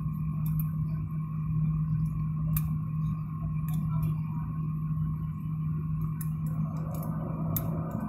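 Jet airliner cabin noise while taxiing: the engines' steady drone with a pronounced low hum and a fainter higher whine, with scattered small clicks and rattles. A broader rushing sound builds near the end.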